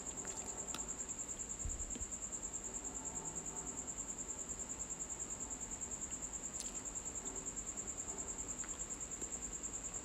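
A cricket trilling: a steady, high-pitched pulsing trill, with a couple of faint clicks underneath.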